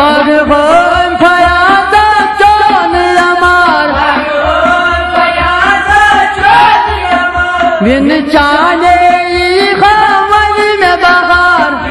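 Kashmiri folk song: a man sings a gliding melody over harmonium, rabab and sarangi, with a steady hand-drum rhythm from a goblet drum (tumbaknari) and a clay pot drum.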